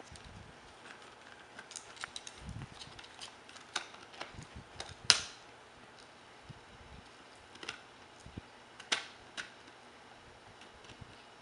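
Shiba Inu puppy gnawing a knotted rawhide bone: irregular sharp clicks and crunches of teeth on the hard rawhide, the loudest about five seconds in.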